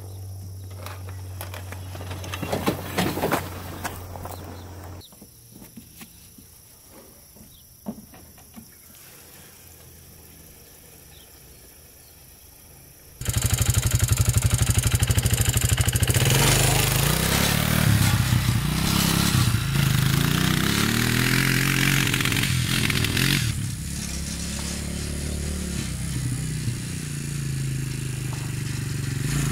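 An Arctic Cat 300 ATV's single-cylinder four-stroke engine comes on abruptly about halfway through and runs loudly, revving up and down as it is ridden off. Before that, a few knocks and clatters as the ATV rolls down wooden loading ramps.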